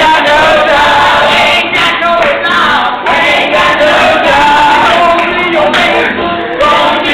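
A group of voices, men's among them, singing and chanting together loudly without instruments.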